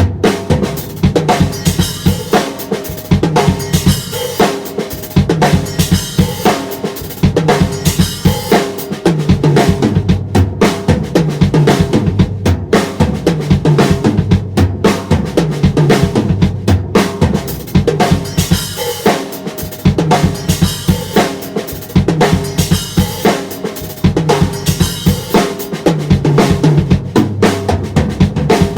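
Premier APK acoustic drum kit played continuously: bass drum and snare in busy grooves and fills, with cymbals ringing over them.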